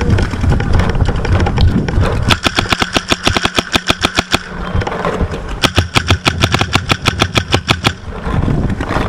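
Empire Axe paintball marker firing in two rapid strings of shots, about seven a second, each lasting about two seconds, with a short pause between them. Before the shooting, wind rumbles on the microphone.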